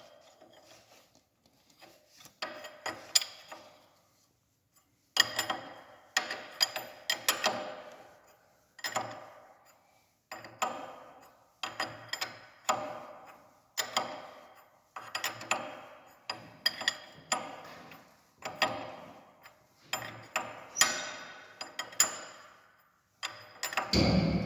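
Ratchet wrench clicking in repeated strokes, a quick run of clicks about once a second from about five seconds in, as it winds down the bolt of a seal installer mandrel that presses the front crankshaft seal into a Deutz BF6M2012C engine.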